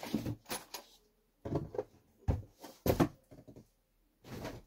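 Handling noise from the model's box and packaging: a scattering of short knocks and clicks at uneven intervals.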